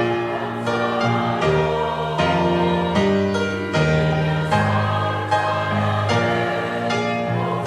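Church choir singing a sacred anthem in sustained chords that change about once a second.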